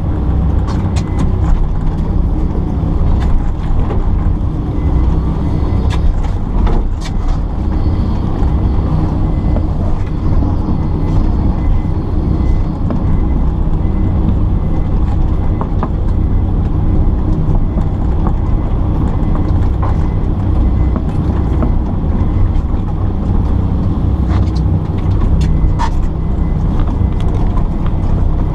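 Kobelco excavator's diesel engine running steadily while the machine works, with scattered knocks and clatters, a cluster around six to seven seconds in and another near the end.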